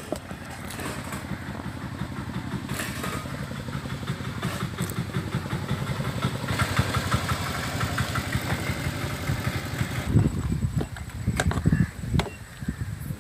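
A small engine, like a motorcycle's, running with a fast, even low putter that grows louder over the first several seconds, followed by a few loud irregular knocks near the end.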